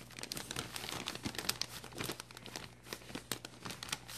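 Clear plastic zip-top bag crinkling and rustling irregularly as a gloved hand works inside it among damp peat moss.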